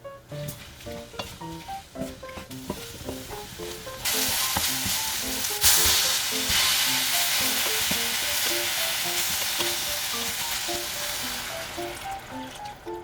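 Food sizzling in a hot frying pan, starting suddenly about four seconds in, flaring louder a couple of seconds later and then slowly dying down. Light background music plays throughout.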